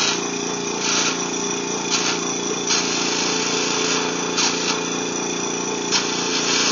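Maxi Gold Pro electric gold snuffer running with a steady buzzing motor hum as its nozzle sucks up gold from a water-filled tub. Short bursts of hiss come through a few times.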